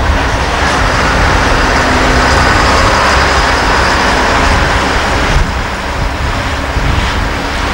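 Loaded MAN F90 dump truck driving past, its diesel engine and tyres making a steady rumble that swells slightly in the middle and eases off near the end.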